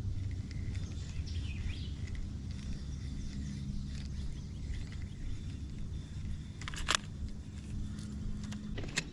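Steady low rumble with a faint even hum, and birds chirping lightly over it. Two sharp clicks come near the end.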